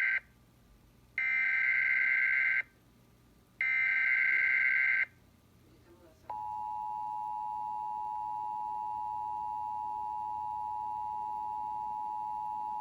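Emergency Alert System SAME header: the tail of one burst of raspy digital data tones, then two more bursts, each about a second and a half, with short gaps between. About six seconds in, the steady two-tone EAS attention signal starts and holds. Together they open a Required Monthly Test of the alert system.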